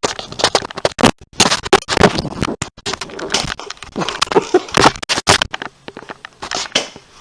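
Irregular clacks, knocks and scraping of Nerf blasters being handled, with scuffling movement in a small room.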